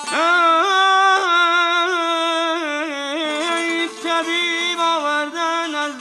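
Iranian regional folk music: a voice singing long, held, ornamented notes that enter sharply at the start, over a plucked long-necked lute.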